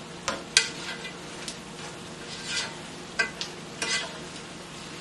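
Metal tongs tossing spinach and chicken in a cast-iron skillet, clinking against the pan about half a dozen times over a faint steady sizzle.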